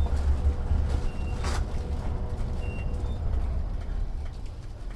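Long, low rumbling fart noise from a prank fart noisemaker, sputtering unevenly and fading towards the end, with a short hiss about a second and a half in.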